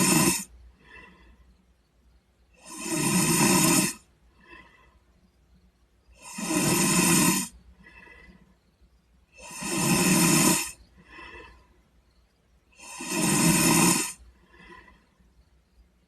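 A sleeping boy snoring in a steady rhythm: four loud, buzzy snores about three seconds apart, each followed by a short, much softer breath sound.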